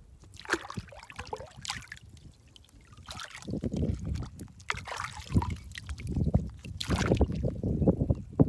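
Water splashing and trickling as hands move through shallow river water, then from about three and a half seconds in heavier, low sloshing close to the microphone.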